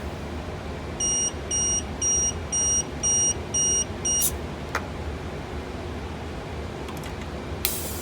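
Electronic alarm beeping six times in short, evenly spaced beeps about two a second, signalling the valve position picked up by the reed switch. The beeping stops with a brief hiss of compressed air, and another short air hiss comes near the end, over a steady low hum.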